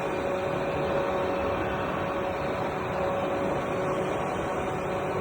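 Automatic valve-welding machine running: a steady, noisy hum with a constant tone held throughout.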